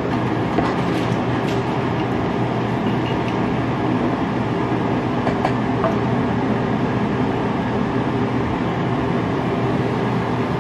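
Steady loud mechanical drone with a low hum, unchanging throughout, with a few faint clicks of utensils against plates.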